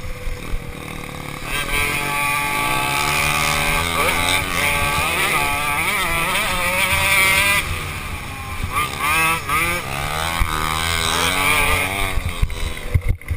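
Small two-stroke engines of Go-Peds and a dirt bike revving up and down, the pitch rising and falling again and again with the throttle. A few sharp knocks come near the end.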